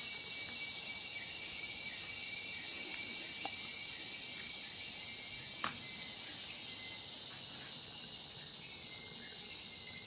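Steady high-pitched insect chorus droning without a break. A few faint short chirps sound over it, and there is one brief sharp click a little past halfway.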